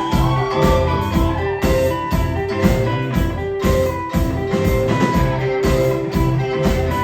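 Live rock band playing an instrumental passage: amplified guitar and bass notes over a steady drum beat, with no singing.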